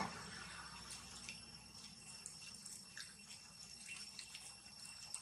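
Faint outdoor ambience: a steady high-pitched whine with scattered light ticks and rustles.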